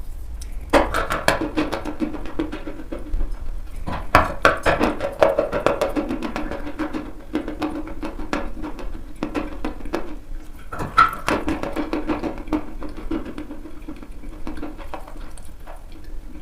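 Chalk being bitten and chewed: dry crunching made of many rapid cracks, with harder bites about a second in, about four seconds in and about eleven seconds in, each followed by a run of chewing crunches.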